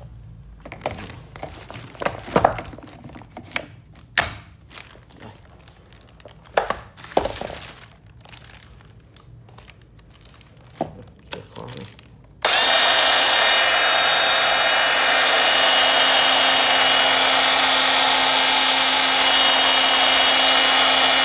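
Handling clicks and knocks as the battery is fitted, then about twelve seconds in a Milwaukee 2629 M18 cordless band saw switches on and runs steadily, a loud even whir with a steady hum and whine.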